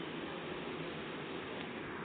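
Faint steady hiss of room tone, with no distinct sound events.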